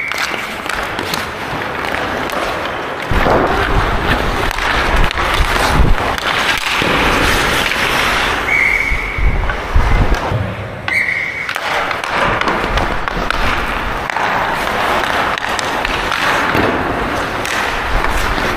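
Ice hockey skates carving and scraping across the ice during live play, with sticks and puck clacking, heard up close from a player-worn GoPro. Two short, high squeals come about halfway through.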